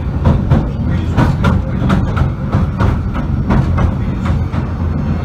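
Southend Pier Train running along the pier, heard from inside the carriage: a steady low rumble with a run of clicks from the wheels on the track.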